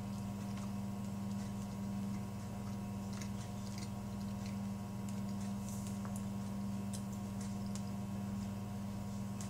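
Steady low electrical hum in a small room, with a few faint ticks.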